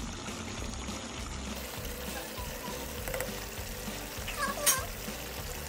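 Diced potatoes tipped from a bowl into a pot of curry goat, over a steady hiss from the pot, with a single sharp knock about four and a half seconds in.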